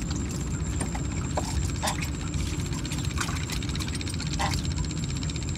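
Small boat engine running steadily at low revs, with scattered short knocks and taps on top.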